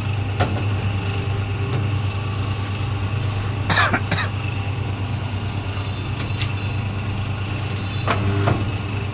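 Double-die paper plate press running with a steady motor hum, and a few short metallic clacks at irregular intervals as the dies press and release, loudest around the middle.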